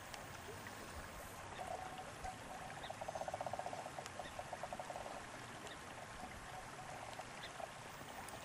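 River water running steadily through a riffle. A fast, low trill joins it about a second and a half in, is loudest around the middle, and fades out near the end.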